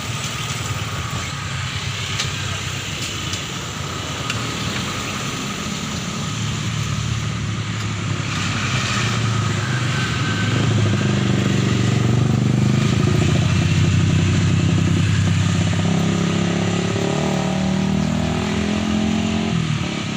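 Heavy vehicle engine straining up a steep hill, a low steady drone that builds about a third of the way in and is loudest around the middle before easing slightly.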